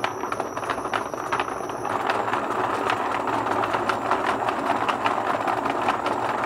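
3D-printed plastic planetary gearbox and wheel driven by a brushless motor, spinning at speed: a dense mechanical clatter of many fast ticks from the printed gears meshing. It gets louder about two seconds in as the motor is run faster.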